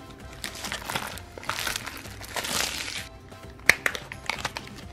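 Crinkling plastic wrapper being peeled off a toy blind basket, with a few sharp plastic clicks near the end, over background music.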